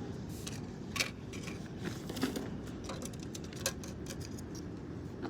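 Scattered small clicks and rustles of something being handled close to the microphone, over a steady outdoor hiss.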